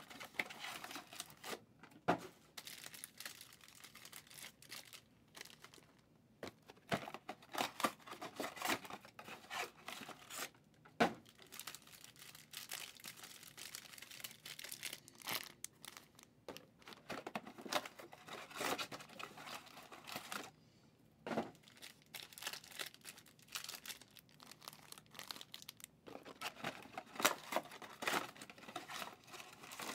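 Trading card box and pack wrappers being torn open and crinkled by hand, in irregular bouts of tearing and rustling with short pauses, as the cards are taken out and handled.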